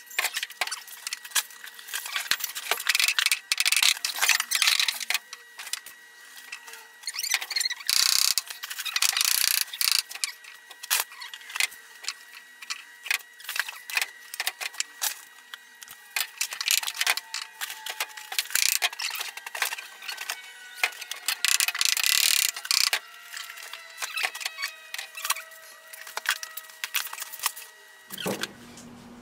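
Screws being driven into wooden struts under a workbench with a cordless drill-driver and a long square-drive bit: scattered clicks and knocks of tool and wood handling, with about three bursts of whirring, each a couple of seconds long.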